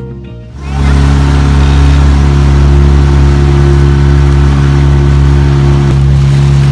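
Small boat's outboard motor running at a steady speed, heard from on board as a loud, even hum that comes in suddenly about half a second in.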